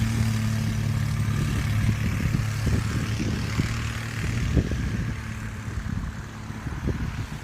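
A vehicle engine running with a steady low drone, over a wide hiss of wind noise and a few dull thumps; the drone weakens and fades near the end.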